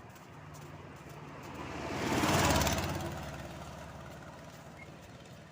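A motor vehicle driving past with its engine running, growing louder to a peak about halfway through and then fading away.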